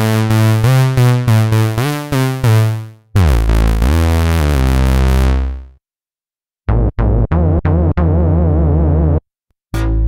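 Cherry Audio Dreamsynth software synthesizer playing bass presets one after another. First comes a quick run of short bass notes. Then a long note slides down in pitch and fades out, and after a short silence a few short stabs lead into a held, wavering note.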